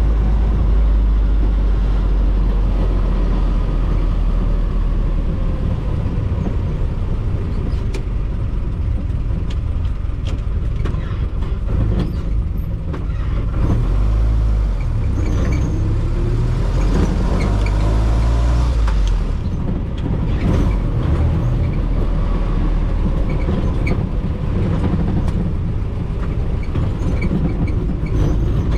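Classic Jeep CJ-5's engine running under way in an open body, drivetrain and road noise with it. Past the halfway point the engine note climbs as it pulls, then drops back, as with a gear change.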